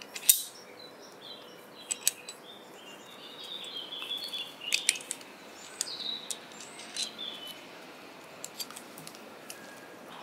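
Sharp metallic clicks and clinks of a slackline ratchet's steel frame, bolts and shackle being handled as a webbing strap is fitted to it, the loudest just after the start and a quick pair about two seconds in. Birds chirp in the background.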